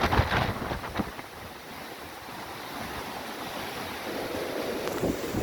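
Storm surf breaking on the shore, a steady rushing wash that builds toward the end, with strong gusty wind buffeting the microphone, loudest in the first second.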